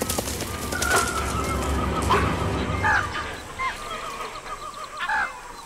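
Rustling and crashing through dry undergrowth as a deer bolts from a tiger's charge, loudest in the first two seconds. Birds call over it in a run of short, hooked notes that fade near the end.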